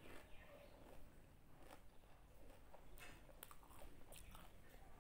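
Faint chewing of a mouthful of pani puri, with a few soft, irregular crunches of the crisp fried puri shell.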